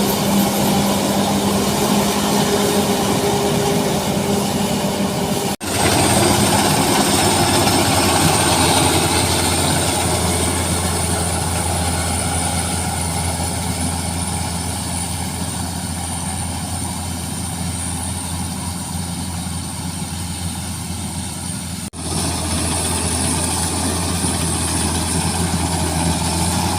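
Rice combine harvester engine running steadily under load with its threshing machinery, a continuous mechanical drone. The sound cuts out briefly twice, about five and a half and twenty-two seconds in.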